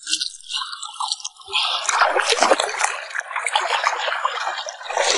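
Muddy water splashing and sloshing through a woven bamboo basket worked in a river. It starts about a second and a half in with a dense wet crackle.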